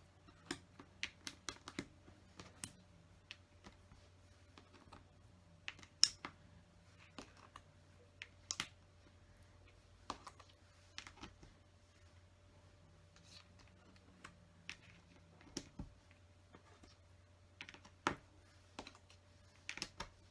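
Plastic LEGO bricks clicking and clattering as pieces are handled and pressed together, in irregular sharp clicks with short pauses between them.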